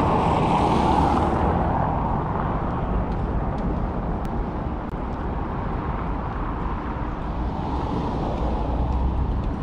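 Road traffic noise: a steady rumble of vehicles, louder for about the first second and a half.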